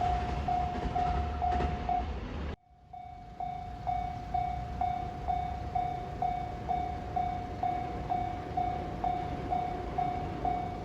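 Japanese level-crossing alarm bell ringing steadily at about two strikes a second. For the first two and a half seconds a passing train's low rumble runs under it; then the sound drops out abruptly and the bell carries on with the rumble gone.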